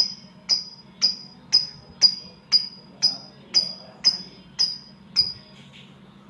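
Samyong bird giving a sharp, high chirp over and over, about twice a second and very evenly spaced, each note dropping slightly in pitch; the series stops about five seconds in.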